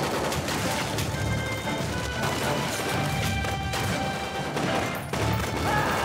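Battle sound effects: continuous rapid machine-gun and rifle fire with crashes, mixed under a background music score.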